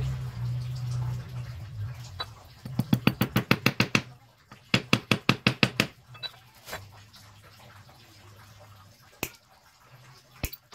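Two quick runs of sharp metal taps, each lasting about a second at roughly eight strikes a second, as the nail spikes set through a lead fishing sinker are struck on a wooden block. A low hum sounds in the first couple of seconds, and two single clicks come near the end.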